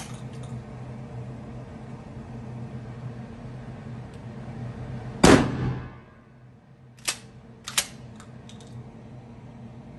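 A 12-gauge CBC Military pump-action shotgun fires once, loudly, about five seconds in, and the shot rings briefly around the indoor range. About two seconds later come two sharp clacks, the pump being worked back and forward to eject the spent shell and chamber the next one. A steady low hum runs underneath.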